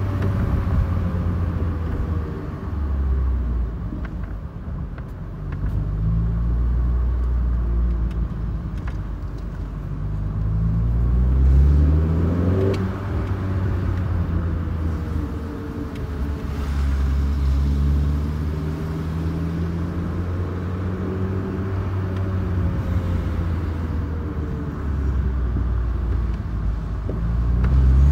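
Mini One R50's four-cylinder engine heard from inside the cabin, accelerating several times: the engine note climbs and then drops at each gear change.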